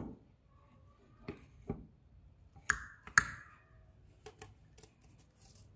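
Metal clicks and knocks as the rotary group of a Yuken A70 variable piston pump (cylinder block with pistons and retainer plate) is slid down the splined drive shaft into the pump housing. Two sharper, ringing clinks come about three seconds in, followed by a few light ticks.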